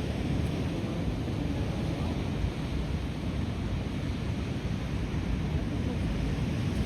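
Steady wind buffeting the microphone, heaviest in the low end, with the wash of ocean surf behind it.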